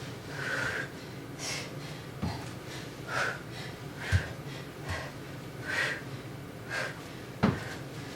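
A woman breathing hard in short, sharp breaths about once a second while doing push-ups with a kick-through, with a few dull thumps of hands and feet landing on an exercise mat.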